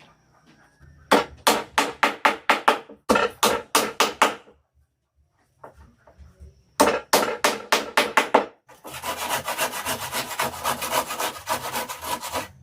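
A hand tool worked back and forth on wood in quick rhythmic strokes, about four a second, in runs with short pauses. Near the end the strokes come faster and run on without a break.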